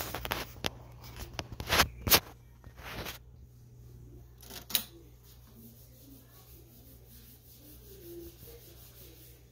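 Clicks and clunks from a Marantz SD3000 cassette deck being handled: a quick cluster of sharp clicks and knocks over the first three seconds, then two more about four and a half seconds in, over a steady low hum.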